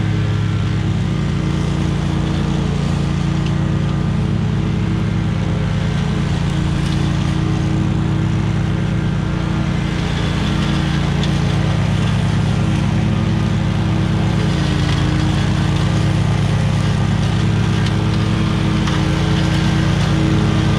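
SCAG zero-turn mower's engine running steadily at a constant speed, with no change in pitch or level.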